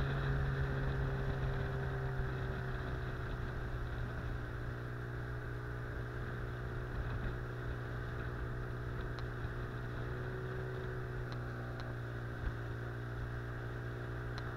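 Small outboard motor running steadily at cruising speed, pushing an inflatable boat upriver, its pitch easing down slightly in the first few seconds.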